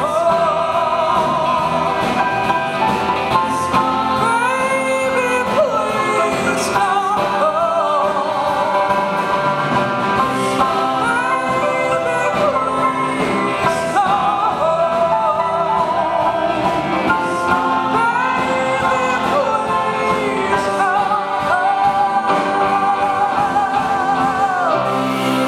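Live vocal music: a woman lead singer with a group of backing singers, accompanied by acoustic guitar, singing long held notes with vibrato.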